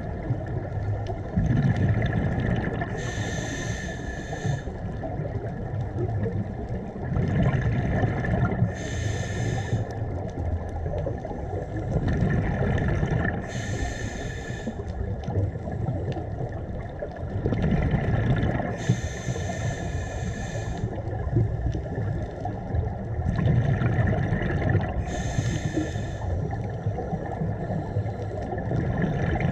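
Scuba diver breathing through a regulator underwater. A bubbling rumble from each exhale alternates with the hiss of the next inhale, about one breath every five to six seconds.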